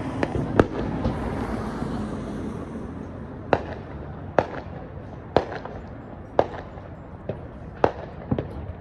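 Fireworks going off: about ten sharp bangs at uneven intervals, roughly one a second, over a rumbling hiss that fades out about three seconds in.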